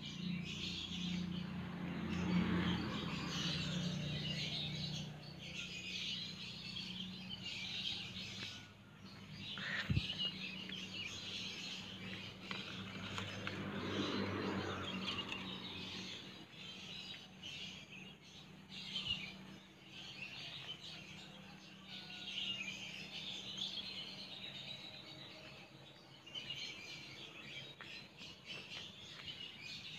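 Many small birds chirping and twittering continuously in the background, with a faint steady low hum. A single sharp knock about ten seconds in, and now and then rustling as the phone brushes through leaves.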